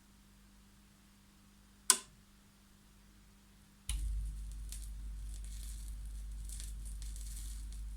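Pioneer PL-X9 automatic record player starting a record: a single sharp mechanical click about two seconds in, then about two seconds later the stylus sets down and the lead-in groove plays, with low rumble and light surface crackle.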